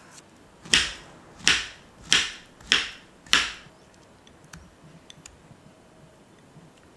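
A banana being peeled and cut up: five short, sharp sounds about two thirds of a second apart, then a few faint clicks as the pieces are set into a glass container.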